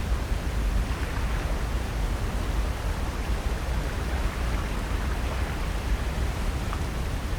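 Steady rushing coastal ambience of ocean surf and wind, with a heavy low rumble and no distinct events.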